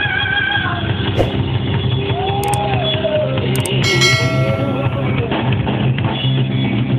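Live rock band playing with drums and a singing voice, recorded through a phone. Over it come two pairs of quick mouse clicks about two and a half and three and a half seconds in, then a bright bell ding that rings out for about a second, the sound of a subscribe-button animation.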